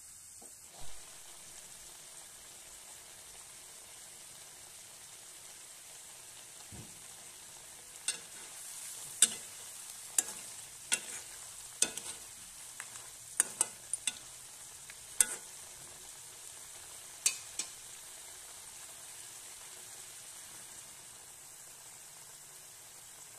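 Crab curry sizzling gently in a metal kadai while a flat steel spatula stirs it, scraping and clinking against the pan about a dozen times in the middle stretch.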